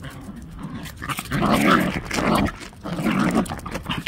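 A dog giving a series of drawn-out, growly barks, three of them starting about a second in.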